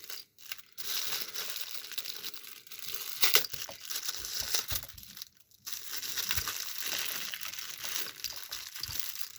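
Packaging crinkling and rustling as it is handled and worked open, with a sharp crackle about a third of the way in and a brief pause a little past halfway.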